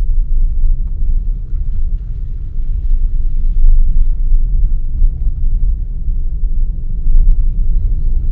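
Car driving along, a steady low rumble of road and engine noise, with a faint repeated high chirp starting near the end.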